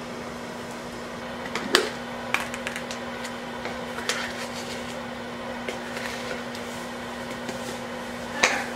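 Microwave oven running with a steady hum, with a few sharp clicks and taps from a tin and spoon being handled, the loudest a little under two seconds in and again near the end.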